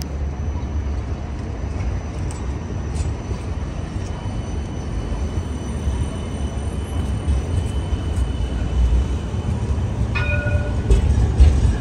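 CAF Urbos 3 light rail tram rolling slowly past on street track, a steady low rumble with a faint high whine. A short ringing tone sounds about ten seconds in.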